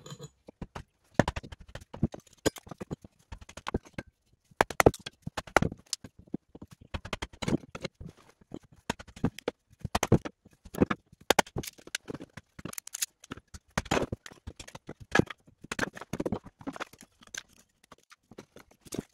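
Hatchet splitting a small log into kindling on a wooden floor: a run of irregular, sharp wooden chops and knocks, a few each second, as the split pieces are knocked about and handled.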